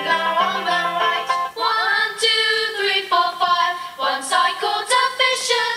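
A children's nursery-rhyme song from a videotape, heard through a television: a child singing a melody over a bright instrumental backing.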